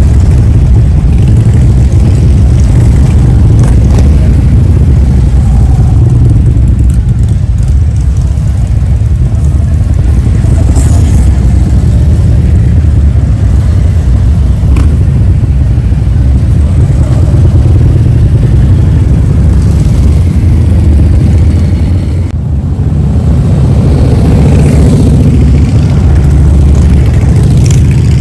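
Motorcycle engines running in a loud, steady low drone, with some revving and rising engine pitch in the last few seconds.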